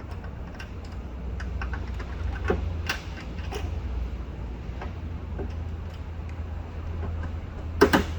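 Scattered light clicks and taps of a socket set and wobble extension being worked against the sheet metal inside a car door, with a louder knock near the end, over a steady low hum.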